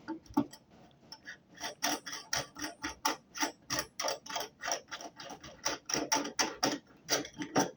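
A steady run of sharp mechanical clicks, about five a second, from hand work on metal plumbing parts.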